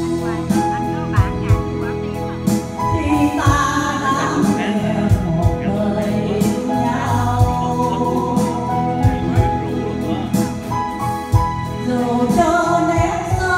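A woman singing a Vietnamese ballad into a microphone, holding long notes over instrumental accompaniment with a steady beat.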